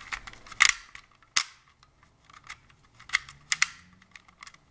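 Plastic mechanism of a no-name 35mm toy point-and-shoot film camera clicking as its shutter is fired and its thumbwheel film advance is wound with the back open and no film. There are four sharp clicks and fainter ticks between them.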